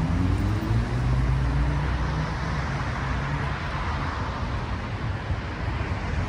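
City street traffic: a motor vehicle's low engine hum rising slightly as it pulls away, then fading after a few seconds, over a steady wash of street noise.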